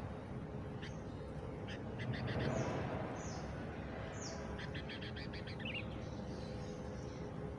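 Birds calling: short runs of quick, high chirps and several high whistled notes that sweep downward, over a steady faint outdoor hum. A brief swell of rushing noise comes about two seconds in.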